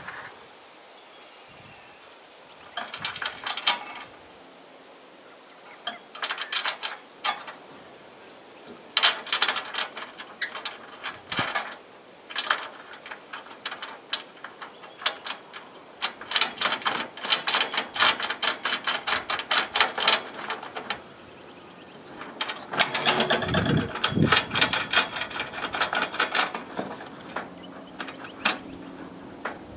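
Hand tools and metal hardware clicking and clattering in repeated bursts of rapid clicks, with quieter gaps of a second or two between them.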